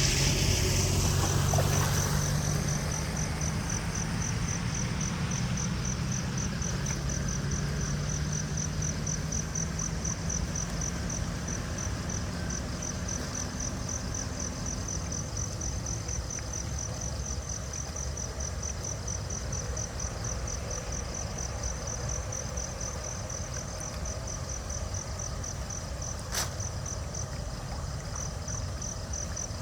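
Insect chirping in a steady, evenly pulsing high trill, over a low rumble that fades away in the first dozen seconds. A single sharp click comes near the end.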